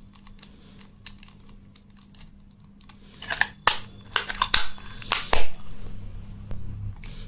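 Handling clicks and clacks of a Gamo PR-725 CO2 air revolver as its sliding polymer grip is closed again after the 12-gram CO2 capsule has been taken out. The first few seconds are quiet apart from faint ticks, then a run of sharp clicks starts about three seconds in, the loudest a little past five seconds.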